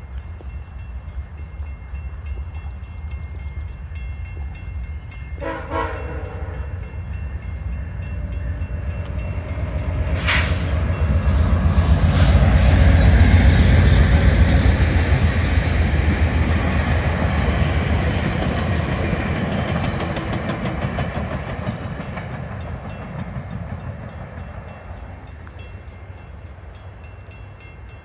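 VIA Rail passenger train sounding one horn blast about a second and a half long, then passing behind the trees: a low rumble of locomotive and cars that swells to its loudest about halfway through and slowly fades away.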